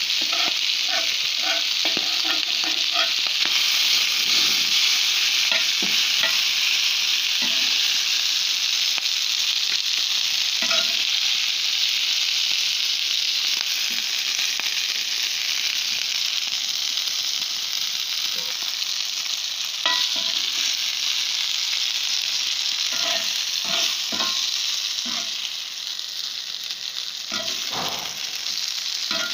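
Meat strips frying in hot oil in a pan, a steady loud sizzle, with scattered light clicks and scrapes from a perforated metal skimmer stirring them.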